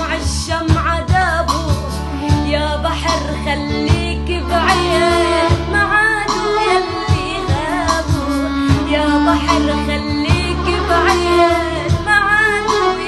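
A song: a solo singing voice with a wavering, ornamented melody over a steady bass line and a regular beat.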